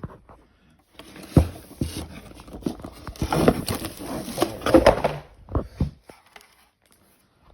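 Handling noise from unboxing a synthesizer: rustling packaging with a run of knocks and clicks, a sharp thump about a second in, dying away to a few knocks and then quiet after about six seconds.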